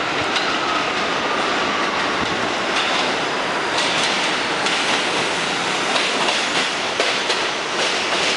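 R62A subway train on the 7 line approaching and rolling past along the platform: a steady rumble of steel wheels on rail. A faint falling whine sounds in the first two seconds, and rail-joint clicks come from about four seconds in as the cars pass.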